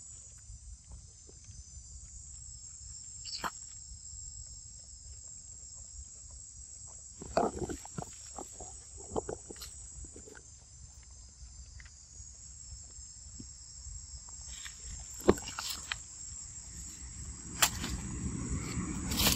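A steady, high insect drone from the surrounding forest, with scattered rustles and a few sharp clicks, the loudest about three-quarters of the way through and again near the end.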